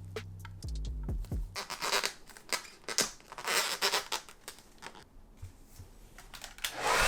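Figure packaging being handled and opened: a string of small clicks and short scraping, rustling bursts, with a louder rustle near the end.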